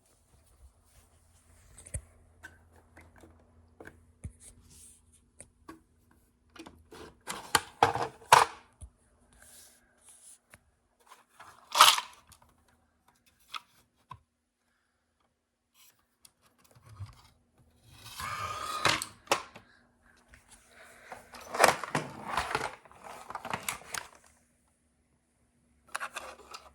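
Hard plastic Lego bricks clattering and scraping in irregular bursts of clicks, the loudest around a third of the way in and again past the middle, with near-quiet gaps between and a faint steady hum underneath.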